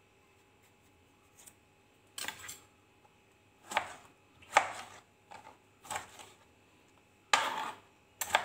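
Kitchen knife cutting tomatoes into pieces on a plastic cutting board, each cut ending in a sharp knock of the blade on the board. About seven cuts at uneven intervals, starting about two seconds in.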